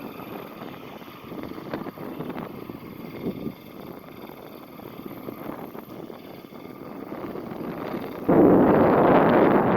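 Distant boat engine running hard as the grounded barge tries to power itself back off a sandbar. About eight seconds in, a sudden loud gust of wind buffets the microphone and drowns it out.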